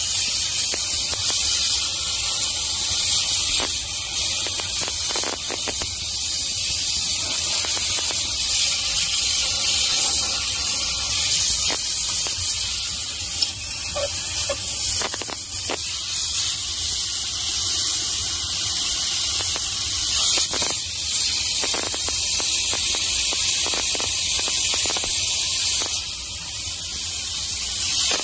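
Steam-cleaning gun hissing steadily as its jet of steam plays over a caravan's siding, with a low steady hum underneath and a few short knocks.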